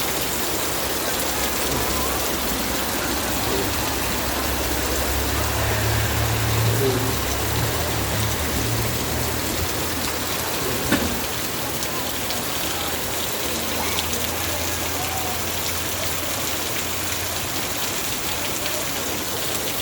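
Heavy rain pouring steadily. A low rumble runs under it for several seconds in the middle, and there is a single knock about eleven seconds in.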